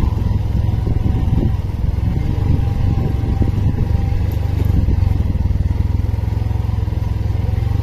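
Motorcycle engine running at a steady pace while the bike rides along, a constant low rumble.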